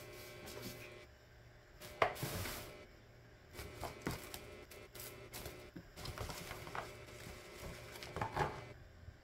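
Fresh green beans and their thin plastic bag being handled and packed into a plastic food storage container: irregular rustling and crinkling with a few light knocks, the sharpest about two seconds in.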